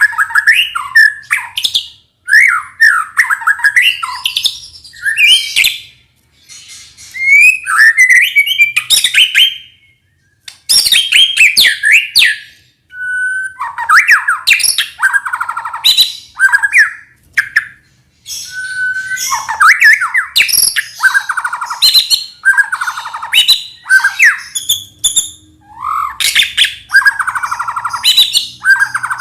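White-rumped shama singing a fast, varied song of whistles, chirps and harsh notes, in bursts broken by short pauses.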